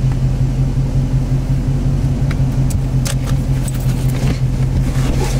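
Car engine idling, heard from inside the cabin: a steady low hum, with a few light clicks and rustles in the second half.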